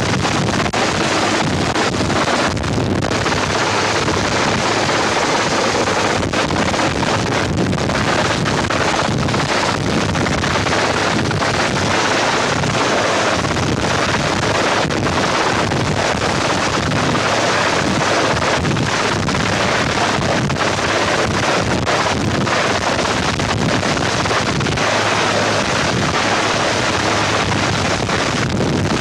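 Wind blowing over the microphone in open country: a steady, unbroken rushing noise with no pitched sound in it.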